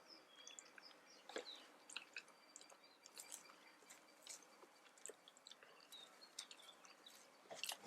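Faint chewing with scattered soft clicks: a person eating a mouthful of chicken curry.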